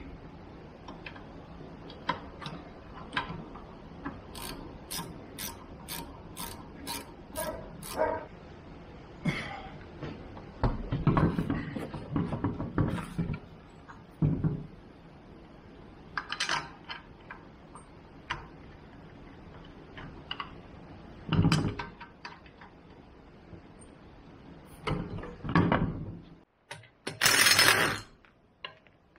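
Clicks and clunks of hand work at a car's wheel hub and wheel, with a run of even clicks, about two a second, a few seconds in. Near the end a pneumatic impact wrench runs briefly, the loudest sound, tightening a wheel bolt.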